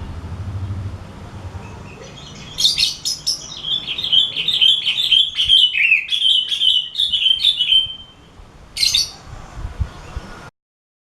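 Sooty-headed bulbul (kutilang) singing a run of quick, rapidly repeated chirping notes for about five seconds, then giving one short call. The sound cuts off abruptly near the end.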